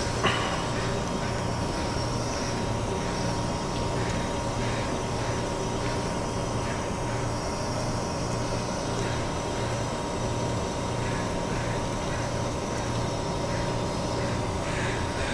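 Steady low machinery hum with a faint constant tone above it, and a brief knock just after the start.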